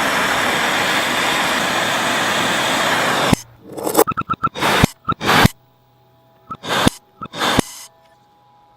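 Workshop scraping noise played in reverse: a steady, harsh scrape for about three seconds that cuts off abruptly, then a quick run of short scrapes and two more single strokes later on.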